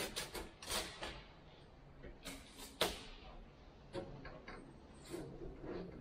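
Scattered knocks, clicks and scrapes of hands working the window glass loose from a stripped Mercedes Sprinter front door, with the sharpest knock a little before three seconds in.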